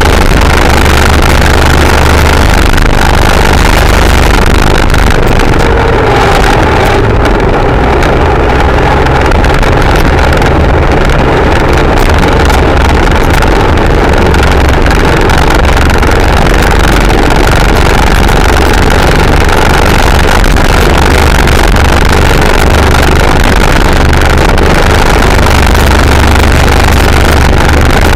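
A tuned single-cylinder scooter engine with a cam and aftermarket exhaust held at high revs, around 9,000 rpm, at a steady top speed. Loud wind rush covers it, and the engine note hardly changes.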